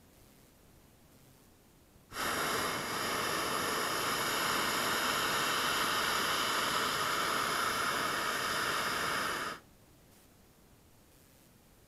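Hot air balloon's propane burner firing in a single blast: a loud, steady rushing hiss that starts abruptly about two seconds in and cuts off sharply some seven seconds later.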